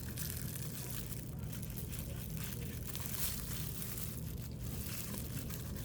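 A makeup brush scrubbing pigment powder into the grooves of a dragon mold: uneven scratchy brushing strokes over a steady low hum.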